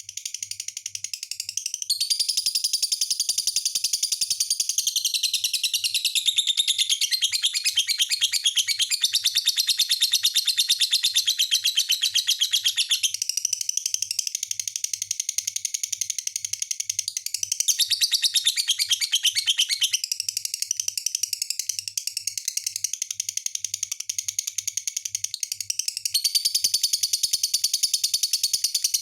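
Lovebird singing a fast, unbroken chattering trill that shifts in pitch. It turns louder and higher about two seconds in and again near the end.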